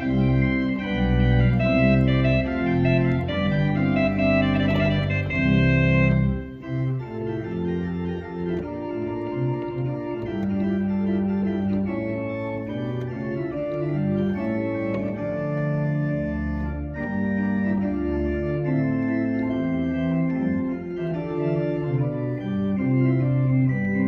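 Church organ played on its manuals: sustained chords and a moving melody over deep bass. About six seconds in the music drops to a quieter, lighter passage.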